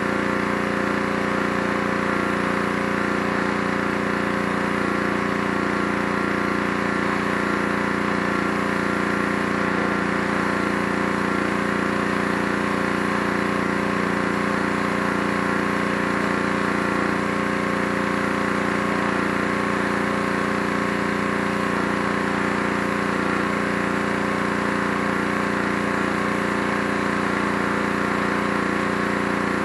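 Small gas engine of a pressure washer running steadily at constant speed while the wand sprays the deck.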